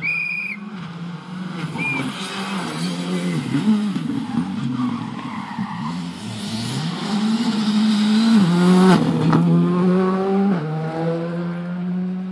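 Rally car engine at full throttle on a loose-surface stage, its pitch climbing and dropping with each gear change as it passes, loudest about eight or nine seconds in.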